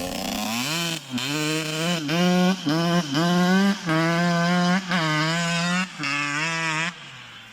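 Yamaha YZ85 two-stroke motocross engine, bored out to 105cc, being revved in a series of quick throttle blips about once a second, each rising sharply and holding before dropping back, then falling to a lower tone near the end.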